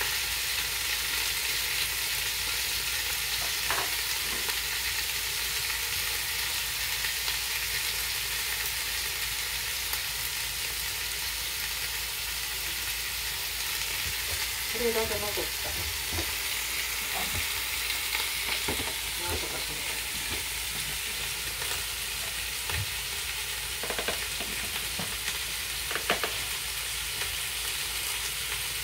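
Pork-wrapped eggplant rolls sizzling steadily in olive oil in a frying pan, with a few light clicks of a utensil against the pan.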